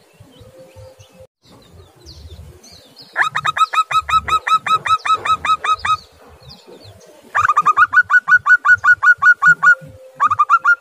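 Zebra dove calling: three bouts of quick, evenly repeated staccato cooing notes, about five a second, each bout lasting two to three seconds.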